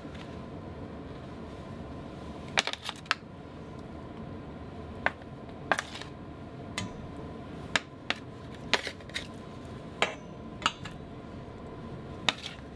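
Metal kitchenware clinking and tapping: an aluminium tray and a stainless steel batter bowl knock together as raw salmon pieces are lifted off the tray and dropped into the batter. The sharp clinks come about a dozen times at irregular intervals, with a small cluster about two and a half seconds in, over a steady background hum.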